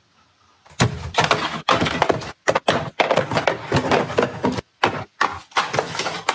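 Loud clattering and crackling of objects being handled, starting a little under a second in and running in bursts cut apart by several sudden silences.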